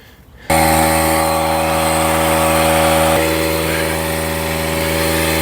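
DeWalt cordless compressor (tire inflator) starts about half a second in and runs at a steady pitch, pumping up an e-bike tire towards 33 psi.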